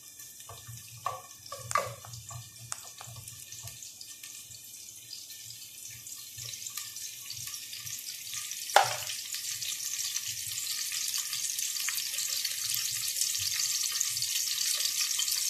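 Sliced onions frying in oil in a steel pressure-cooker pot, the sizzle building steadily louder. A few light clicks come early on, and a single sharp knock about nine seconds in.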